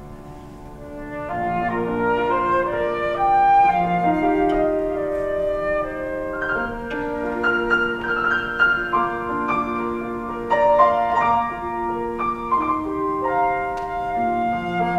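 Flute and grand piano playing classical chamber music together: a flowing flute melody of held notes over piano accompaniment. It is soft at first and fills out about a second in.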